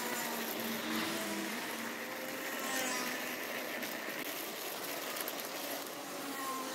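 Street traffic noise: a steady rush of passing cars, with one vehicle passing a little louder near the end.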